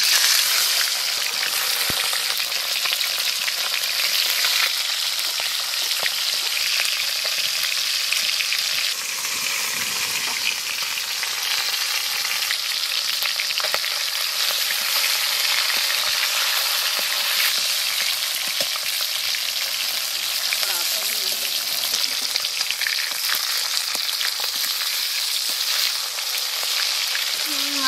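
Hilsa fish heads sizzling steadily as they fry in hot mustard oil in a metal wok. A metal spatula scrapes and clicks against the pan as they are turned.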